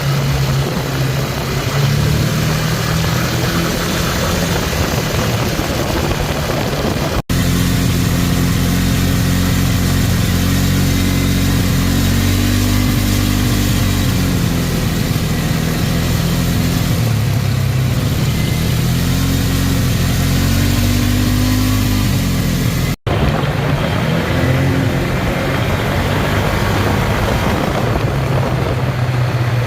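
ATV engine running, with two brief dropouts about a third of the way in and near the three-quarter mark. In the middle stretch it is revved twice, the pitch rising and falling each time. The owner reports the engine misfiring.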